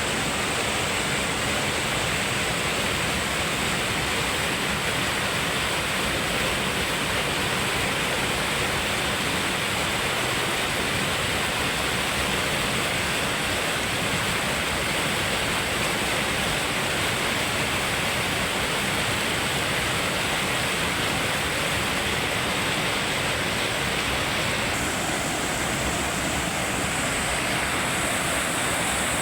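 River waterfall, water falling and splashing in a steady, unbroken rush.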